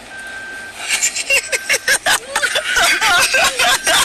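A man's raised, excited voice in rapid bursts, starting about a second in. Before it, a faint steady high tone.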